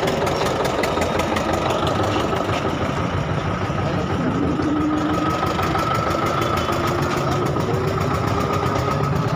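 A vehicle engine idling close by: a steady rumble with a fast, even clatter and no change in speed.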